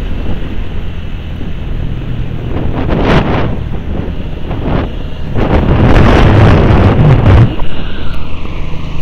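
Wind buffeting the microphone of a moving motorcycle, with the motorcycle's engine running steadily underneath. The wind gusts loudest about three seconds in and again from about five and a half to seven and a half seconds.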